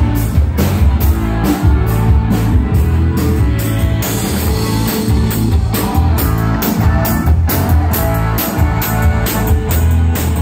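A live band playing rock music through a PA system: guitar over a steady drum-kit beat with heavy bass.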